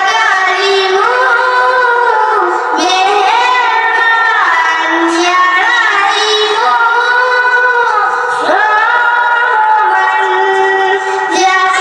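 A young girl singing a Bengali gojol, an Islamic devotional song, into a microphone, with long held notes that bend and glide between pitches.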